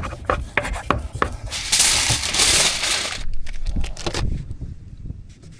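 Food-preparation handling: light knocks and clicks, then a loud rustling crinkle for about a second and a half, and a few more clicks.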